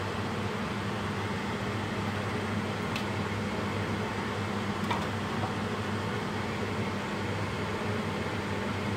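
Steady hum of a fan, an even rushing noise over a low drone, with two faint ticks about three and five seconds in.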